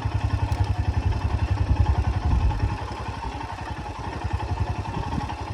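Motorcycle engine running at low speed on a rough track, with a fast, even exhaust pulse. It is louder in the first half and eases off about halfway through, as the throttle is backed off.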